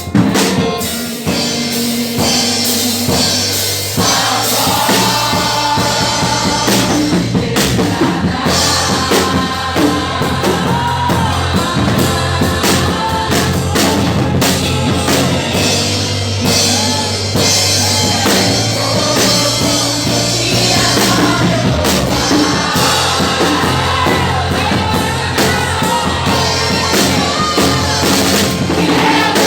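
Music with singing over a drum kit and a steady bass line.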